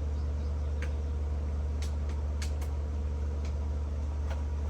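Steady low machine hum at an even level, with a few faint clicks scattered through it.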